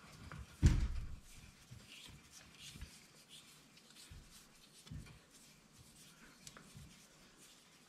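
Hand work refitting a car's tie rod end: a single thump under a second in, then scattered light scrapes and clicks of metal parts and tools being handled.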